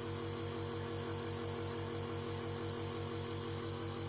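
Compressor nebulizer running during an inhalation, its pump motor giving a steady buzzing hum with a fast, even pulse as it mists the medicine.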